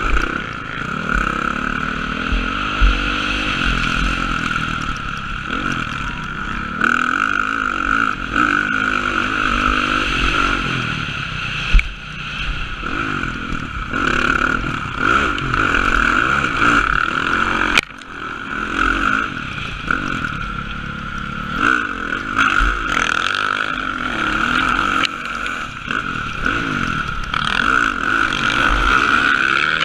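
Motocross bike engine revving up and down repeatedly as it is ridden hard around a dirt track, heard from the rider's helmet, with two sharp knocks about six seconds apart.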